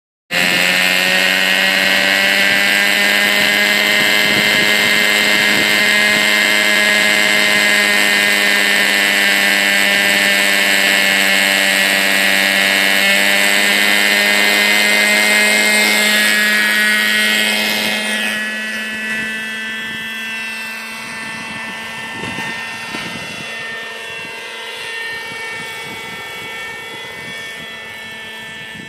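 Hirobo radio-controlled helicopter running with a steady, loud whine, its rotor spinning at speed. About eighteen seconds in the sound grows quieter and its pitch starts to waver up and down as the helicopter flies away.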